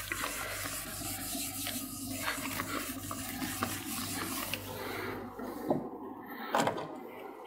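Whiteboard eraser rubbed back and forth across a whiteboard, wiping off marker writing; the rubbing stops about five seconds in, followed by a couple of light knocks.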